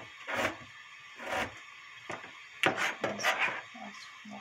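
Kitchen knife slicing radish on a plastic cutting board: two single chops about a second apart, then a quicker run of knocks in the second half.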